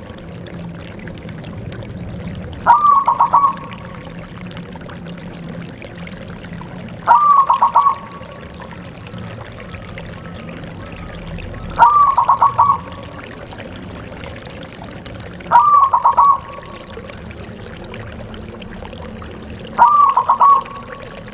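Zebra dove (perkutut) cooing its rhythmic call five times, about every four seconds; each call is a short run of quick pulsed notes.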